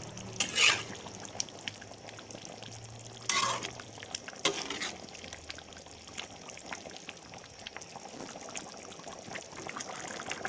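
Beef pieces in spiced coconut liquid bubbling in a cooking pot as the rendang simmers. Three louder short bursts stand out: about half a second in, around three and a half seconds, and around four and a half seconds.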